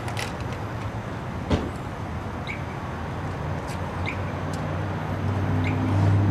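Yamaha YZF-R1 crossplane-crank inline-four idling through its Yoshimura exhaust: a steady low hum that swells slightly near the end. A single sharp click about one and a half seconds in, and a few faint high chirps.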